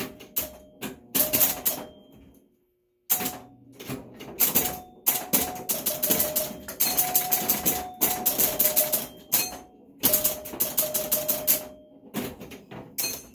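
Super Flite electromechanical pinball machine in play: a rapid clatter of relays, score reels and playfield hits, with short ringing tones mixed in. The clatter stops for about half a second some two and a half seconds in, then resumes.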